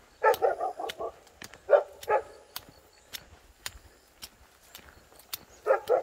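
A dog barking in short runs: a quick series of about five barks in the first second, two more around two seconds in, and two near the end. Faint footsteps can be heard between the barks.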